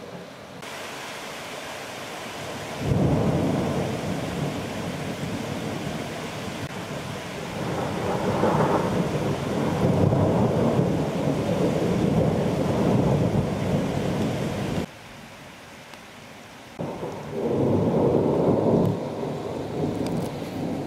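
Thunderstorm at night: steady rain hiss under rolling thunder, with a long rumble of about twelve seconds, then a short lull and a second peal near the end.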